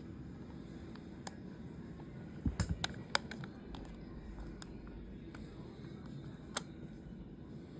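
Scattered light clicks and taps of small objects being handled, with a quick cluster of clicks about two and a half seconds in and single ones before and after.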